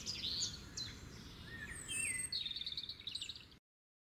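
Songbirds chirping and trilling over a low background rumble, with a rapid run of repeated notes near the end; the sound cuts off abruptly about three and a half seconds in.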